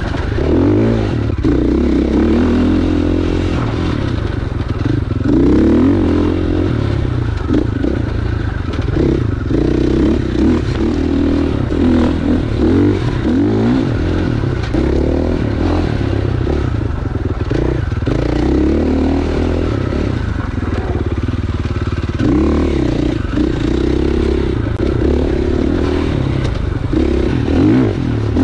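Husqvarna FX 450 dirt bike's single-cylinder four-stroke engine revving up and down over and over as it is ridden along a dirt trail.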